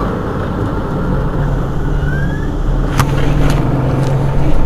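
Mercedes-Benz Citaro G articulated city bus driving, heard from inside the cabin: a steady low engine drone. A short rising whine comes a little after two seconds, and a sharp click about three seconds in is followed by two fainter ones.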